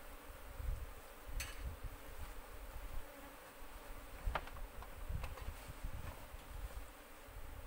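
A cluster of Asian honey bees (Apis cerana) buzzing steadily around their exposed comb. A couple of sharp clicks and an uneven low rumble sit underneath.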